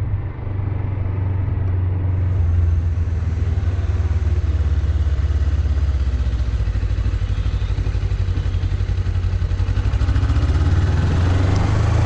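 Suzuki GSX250 motorcycle on the move: a steady low rumble with a quick, even pulsing, in which the drive chain's well-known noise is sought.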